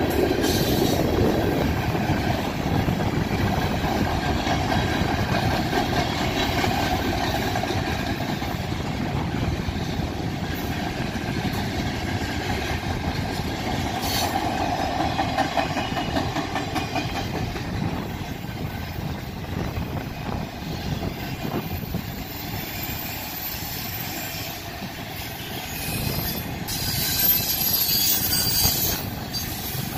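BNSF manifest freight train's cars rolling past, with a steady rumble and clatter of steel wheels on the rails that slowly eases. A high-pitched wheel squeal rises about three seconds before the end.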